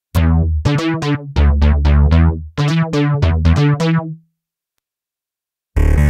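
Cherry Audio Quadra software synthesizer, an emulation of the ARP Quadra, playing a factory preset: a rhythmic phrase of short plucked synth notes over a low bass, each note starting sharply and dying away fast, stopping about four seconds in. Near the end the next preset begins, a denser sustained synth sound with a hiss on top.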